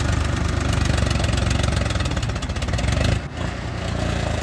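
Tractor diesel engines running with a steady low chugging. The sound drops sharply for a moment about three seconds in, then goes on a little quieter.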